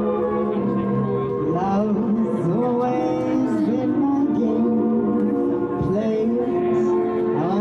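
Music from a live stage show, with held chords and a gliding melody line.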